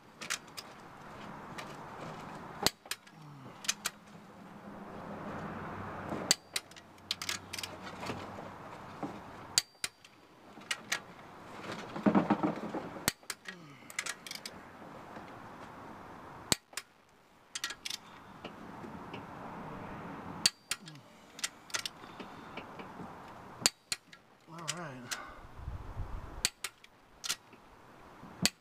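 Torque wrench tightening cylinder head bolts to their final torque: sharp clicks, often in pairs, every few seconds.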